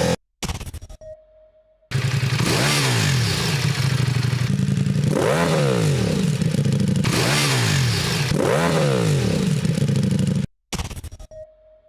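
Ducati Multistrada V4S's V4 Granturismo engine breathing through an Akrapovic race exhaust, revved up and back down about three times. The pitch rises and falls with each blip. The sound drops out briefly just after the start and again near the end.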